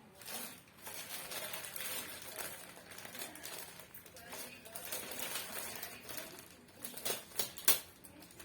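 Rustling and handling of packaging, with a few sharp knocks near the end.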